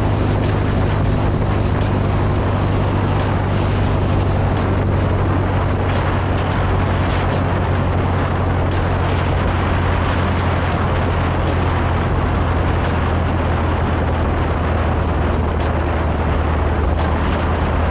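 Piper Arrow's piston engine and propeller running at low power as the plane rolls along the runway, a steady drone with a deep hum. Faint irregular ticks sound over it.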